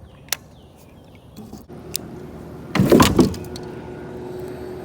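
Steady drone of a motorized watercraft's engine, probably a passing jet ski, starting a couple of seconds in and holding one pitch. About three seconds in there is a loud clattering knock, and a few sharp clicks come earlier.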